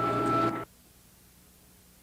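A steady mechanical or electrical hum with several overtones, cutting off abruptly about half a second in. The sound then drops to near silence as the recording breaks off.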